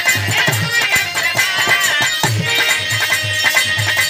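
Instrumental break of Bhojpuri birha folk music: harmonium melody over a steady drum beat, with jingling hand percussion.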